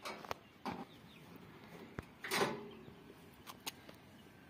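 A few light clicks and knocks, with a short louder scrape about two seconds in: the cover panel of the tower AC's outdoor unit being handled as it is opened.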